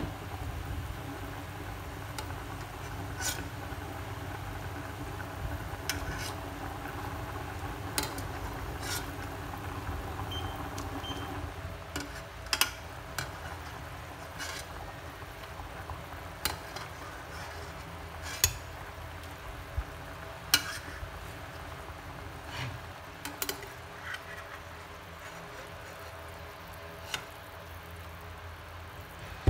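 A pot of chicken at a boil, bubbling steadily, while a metal ladle skims off the scum and clinks about a dozen times against the steel pot and the bowl it is emptied into.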